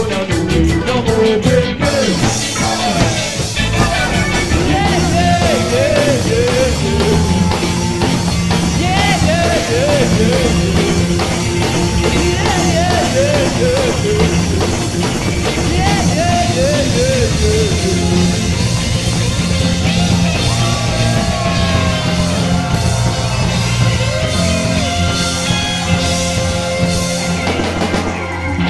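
Live ska band playing loudly: bass and drums under electric guitar, with a lead line sliding up and down in repeated phrases.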